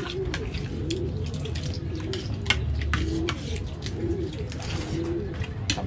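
A dove cooing over and over in short, low notes, about one a second, with light clicks and taps of cutlery and shells on plates.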